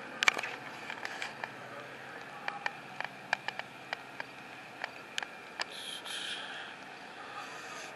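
Handling noise from a handheld camera: irregular sharp clicks and taps, the loudest just after the start, over faint steady background noise, with a brief hiss about six seconds in.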